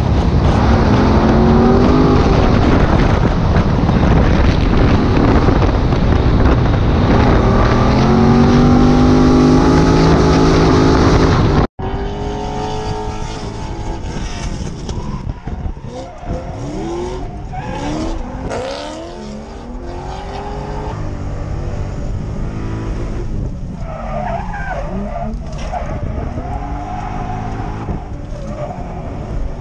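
Drift cars at full throttle, engines revving up and down with tyres squealing as they slide. The first part is loud, close to a hoodless car's exposed engine. After a sudden cut about twelve seconds in, it is quieter and heard from inside an Infiniti G35 sedan's cabin, its V6 revving through a drift with tyre squeal.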